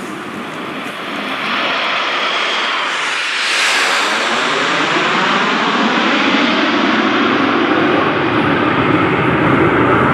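A formation of ten Aermacchi MB-339 jet trainers flying over, their Rolls-Royce Viper turbojets swelling to a loud roar as they pass overhead about three and a half seconds in. The pitch slides down as they go by, then the roar holds steady with a wavering whoosh as they climb away.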